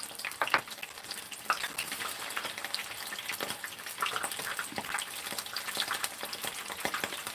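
Battered squid pieces deep-frying in hot oil in a pan: a steady sizzle with frequent crackles and pops of spitting oil.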